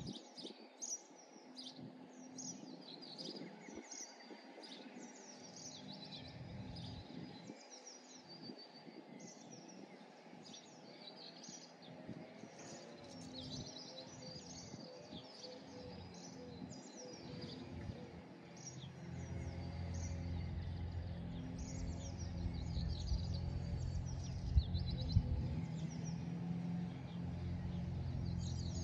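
Small birds singing and chirping on and off, with many overlapping calls. About two-thirds of the way through, a low, steady motor hum comes in beneath them and keeps going.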